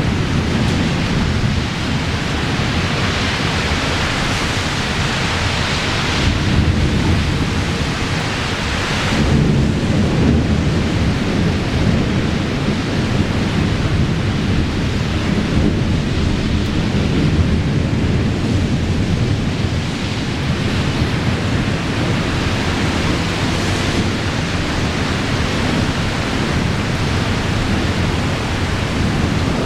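Thunder rolling and rumbling on and off through a steady hiss of rain, with the hiss louder in the first several seconds.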